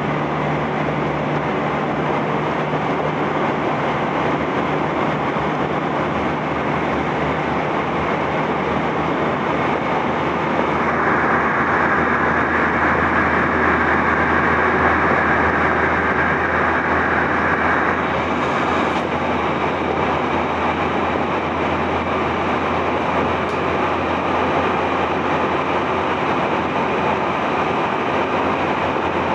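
Electric commuter train running steadily, its wheel and running rumble heard from on board. A steady higher whine joins in about a third of the way through and dies away just past the middle.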